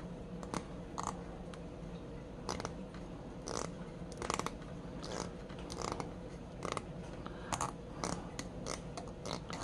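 Rusty antique screwdriver handled and turned in the hands: about fifteen short, irregular dry scrapes and clicks, over a steady low hum.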